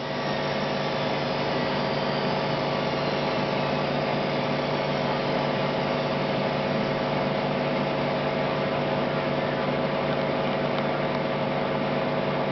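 Indesit washing machine in its spin cycle: a steady motor hum and whine at constant speed, with no distinct knocks standing out.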